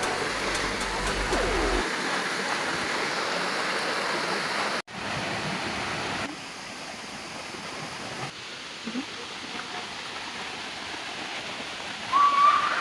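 Waterfall rushing: a steady hiss of falling water, cutting out for an instant about five seconds in and dropping to a lower level twice after that. Near the end a voice begins over it.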